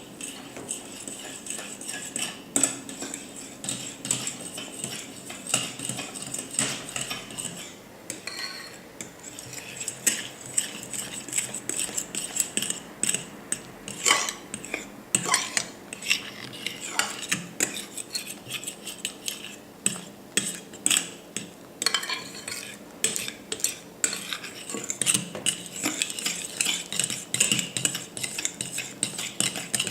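A utensil stirring a mixture of glue, shaving foam and food colouring in a bowl, clicking and scraping against the bowl over and over.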